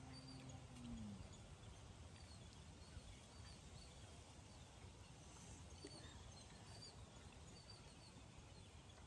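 Near silence: a faint outdoor background with short, high bird chirps repeating every second or so.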